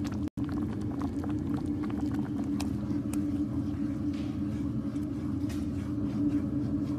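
A steady low hum, with the soft scraping and small ticks of a silicone spatula stirring thick tomato sauce and tomato paste in a pan.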